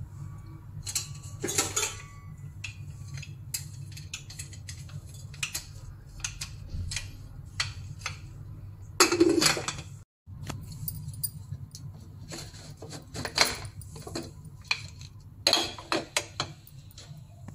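Metal cookware clinking and knocking: a steel cake tin and an aluminium pressure cooker pot being handled, in scattered clinks with a few louder knocks, over a steady low hum. The sound drops out briefly about ten seconds in.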